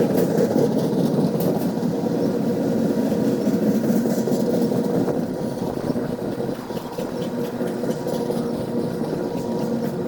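Train rolling past with a steady rumble, easing slightly a little past halfway.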